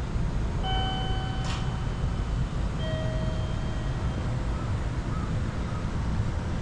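Low, steady outdoor rumble, with two long, even tones over it, the second a little lower and starting about two seconds after the first.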